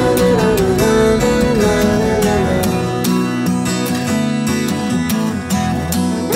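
Background music: strummed acoustic guitar with a gliding melody line and a steady beat.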